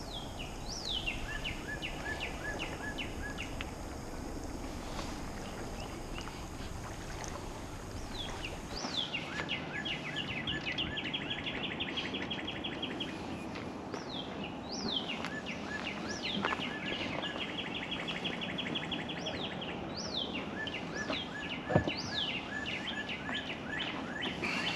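A songbird singing the same phrase again and again every few seconds: a quick downward whistle followed by a fast run of short repeated notes. One sharp knock comes a few seconds before the end.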